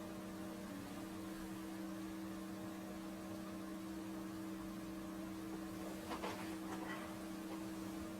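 Steady electrical hum over faint hiss, with a couple of faint short sounds about six to seven seconds in.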